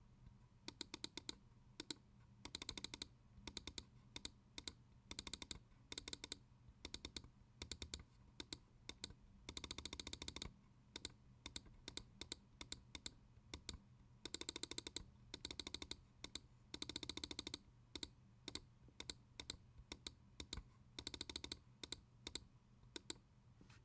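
Huano blue-shell pink-dot microswitch, a mouse-button switch rated for 80 million clicks, being clicked. Single sharp clicks alternate with several fast runs of rapid clicking, each lasting about half a second to a second.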